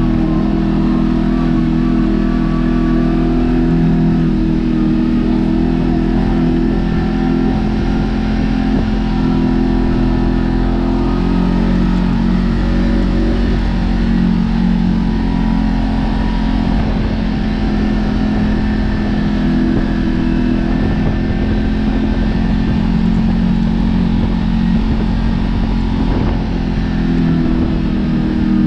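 Kawasaki Teryx KRX 1000 side-by-side's parallel-twin engine running steadily as it drives a dirt trail, heard from inside the open cab over a low rumble. The engine note dips a little about halfway and comes back up.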